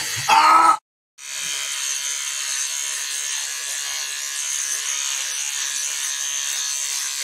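Electric shaver buzzing steadily while it shaves body hair. A short vocal cry comes right at the start, and the sound cuts out completely for a moment about a second in before the buzzing resumes.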